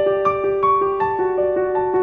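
Background music: piano or electric piano playing a gentle melody of notes in steady succession.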